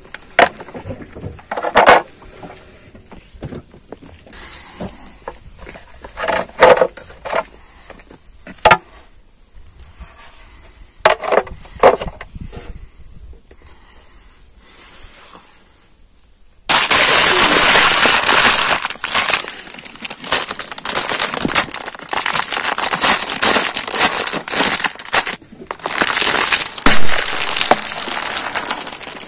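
Plastic creaking and cracking in scattered sharp snaps as a car tyre presses down on a yellow plastic hard hat. A little over halfway this gives way suddenly to loud, dense crackling and crinkling as a plastic packet of red lentils is crushed under the tyre and bursts.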